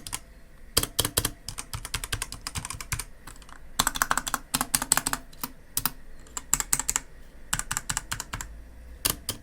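Rampage Ally K11 60% mechanical keyboard with red switches being typed on in quick runs of key clicks with short pauses between them, with just a slight spring noise.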